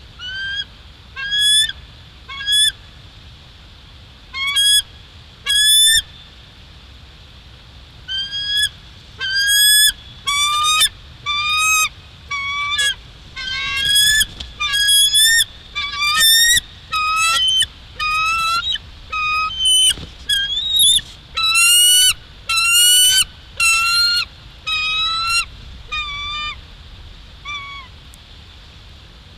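Bald eagles calling: a few short, high chirping calls, then from about eight seconds in a long, fast run of chirps that thins out near the end.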